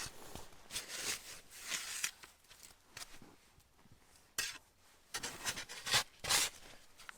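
Irregular rustling and scraping, a string of short bursts, the loudest about halfway through and near the end.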